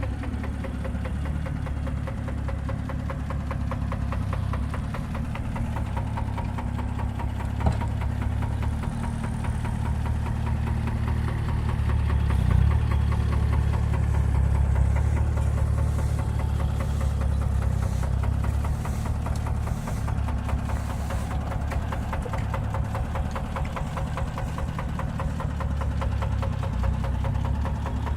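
Small diesel engine of compact earthmoving machinery running steadily with a rhythmic diesel clatter, a little louder in the middle. One sharp knock about eight seconds in.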